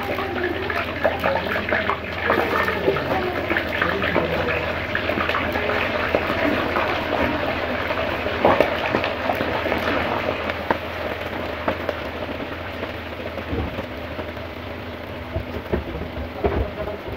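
Raw chicken pieces sizzling and crackling in a large wok of hot ghee, a dense spitting fry that eases off somewhat in the second half. A few dull knocks near the end.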